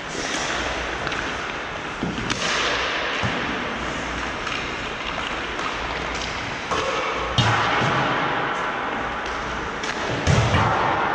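Hockey play: a handful of sharp stick-and-puck knocks and heavy thuds against the boards over a steady haze of rink noise, the loudest thuds about seven and ten seconds in.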